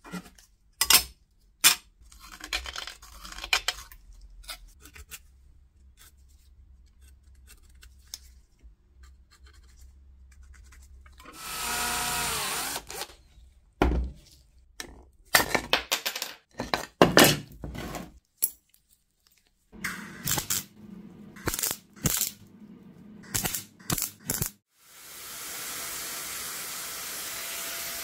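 Hand metalworking on a small steel lever: scattered sharp taps and scraping strokes, a brief motor whirr that falls in pitch, and a run of rubbing strokes against sandpaper. Near the end a small rotary tool with a sanding disc starts up and runs steadily on the part.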